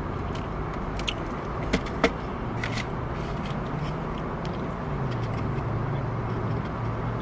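Car engine idling steadily, heard from inside the cabin, with a few light clicks in the first half.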